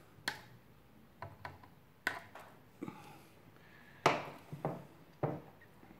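Diagonal cutting pliers snipping off excess component leads on the underside of a circuit board: a string of short, sharp clicks, with a louder knock about four seconds in.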